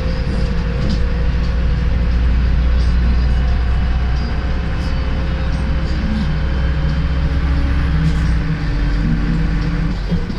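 Cabin noise of a MAZ-105 articulated diesel city bus under way: a loud, low engine drone with a steady whine above it and road rumble. The drone eases slightly near the end.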